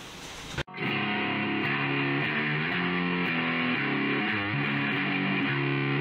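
Outro music with guitar, starting abruptly under a second in after a moment of faint room tone.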